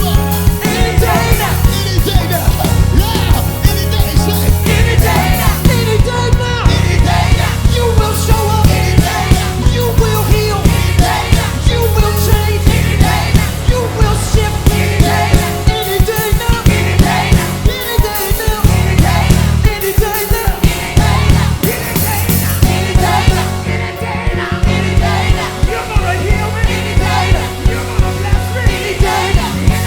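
Live gospel worship band playing with a steady drum beat and strong bass, with voices singing and calling out over it.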